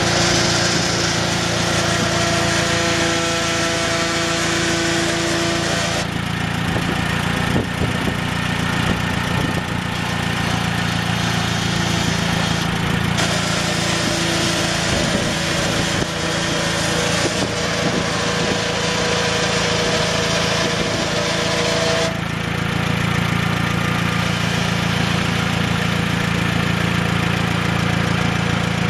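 1972 Massey Ferguson 165 tractor's Perkins AG4.212 four-cylinder gas engine running steadily at idle. Its sound changes abruptly several times.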